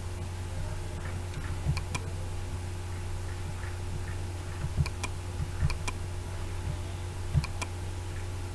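Computer mouse clicking a few times, several of them in quick pairs, with small low knocks as the mouse is moved. A steady low electrical hum runs underneath.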